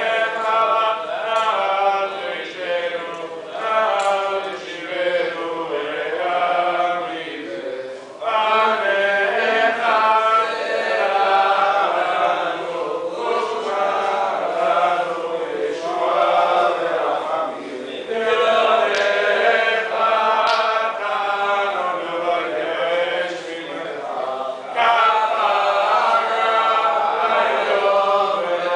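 Men's voices chanting Sephardic Selichot liturgy in Hebrew, in long melodic phrases with brief pauses for breath about 8, 18 and 24 seconds in.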